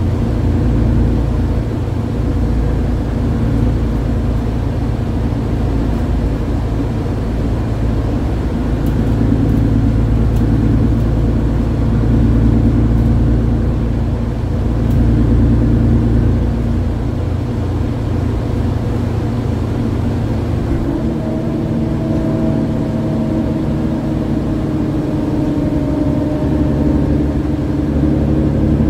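Mercedes-Benz Citaro G articulated bus's OM906hLA six-cylinder diesel engine running while the bus drives, its note swelling and easing as the load changes.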